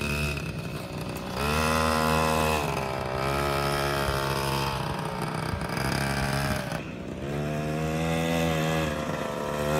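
An X1 pocket bike's small two-stroke engine running while the bike is ridden. The revs climb about a second in and hold steady, drop briefly around seven seconds in, then climb again.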